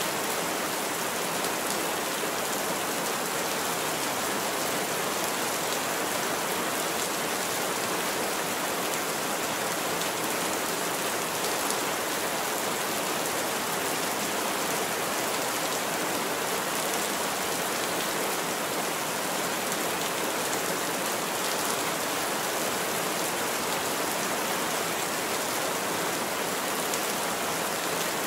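Heavy rain falling steadily, an even hiss with no single loud strikes.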